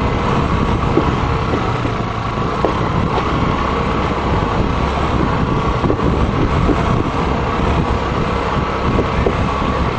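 Motorcycle running steadily over a deck of loose wooden planks, with scattered knocks from the boards under the tyres.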